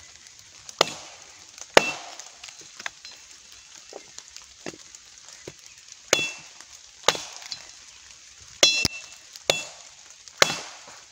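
Tramontina machete blade chopping into the end of a thin wooden stick held against a log, shaping it to a point. There are about seven sharp chops in two bursts with a pause between them, and some strikes give a brief metallic ring.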